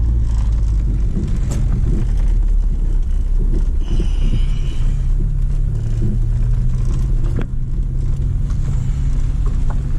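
Small car's engine running low and steady with a rumble in the cabin as the car rolls slowly over a rough dirt track, with a few scattered knocks. A brief higher-pitched sound comes about four seconds in.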